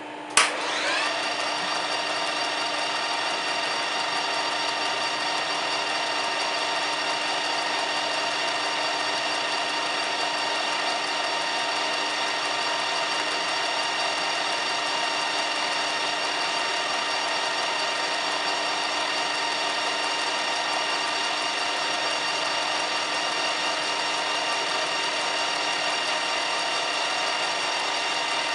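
Metal lathe switched on with a sharp click about half a second in, its whine rising briefly as the spindle comes up to speed, then running steadily. The faceplate carries an offset connecting rod, with the spindle speed set to about 175.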